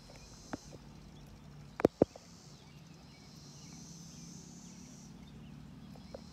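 Quiet outdoor ambience with a faint, steady high hiss through the middle and a low murmur underneath, broken by a few sharp clicks, the loudest two close together about two seconds in.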